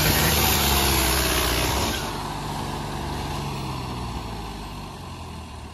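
Turbocharged Mahindra 575 tractor's four-cylinder diesel engine running steadily under load, pulling a tiller through the soil in second gear high range. It drops in level about two seconds in and fades toward the end.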